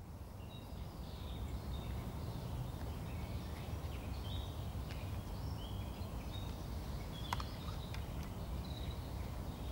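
Outdoor park ambience: a steady low rumble with faint, scattered birdsong chirps above it, and one sharp click about seven seconds in.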